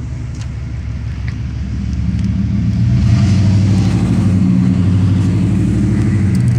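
Car engine running with road noise as the vehicle drives along, a steady low hum that grows louder about two seconds in as it picks up speed.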